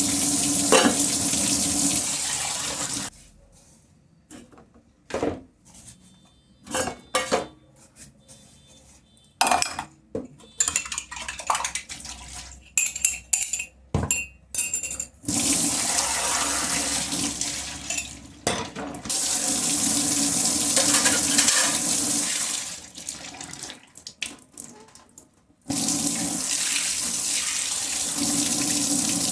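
Kitchen sink tap running steadily while dishes are washed. The water stops for a stretch of about twelve seconds filled with scattered clinks and knocks of dishes being handled, then runs again.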